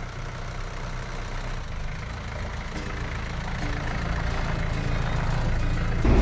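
Engine of a white SUV driving slowly along a gravel track toward and past, with a second car behind it, growing steadily louder as it nears.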